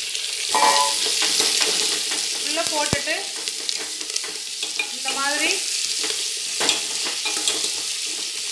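Cubed ash gourd sizzling in hot coconut oil with shallots and curry leaves, stirred with a steel spoon that scrapes and clinks against the aluminium pot.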